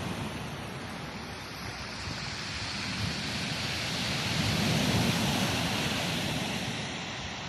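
Ocean surf washing on a beach, a wave building to its loudest about five seconds in and then easing off, with wind rumbling on the microphone.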